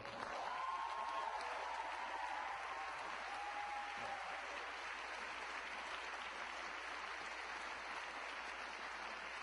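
Crowd applauding, with some cheering voices in the first few seconds, then steady clapping.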